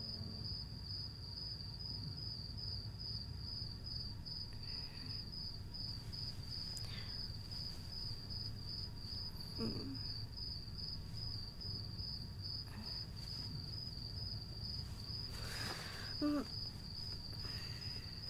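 Crickets chirping steadily in an even pulsing rhythm, about two chirps a second, over a low steady hum.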